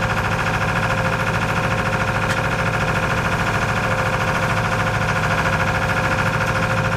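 Sailboat's engine running steadily under way, a fast even beat with a steady hum, driving the boat against the tidal current in light wind.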